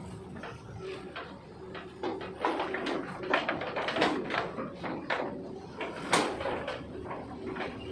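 Long-reach excavator working: its engine hums steadily under irregular metallic clanks and knocks, the loudest about three, four and six seconds in.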